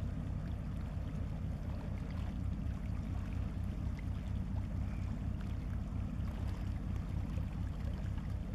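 Wind buffeting the camera's microphone: a steady low rumble that flutters unevenly.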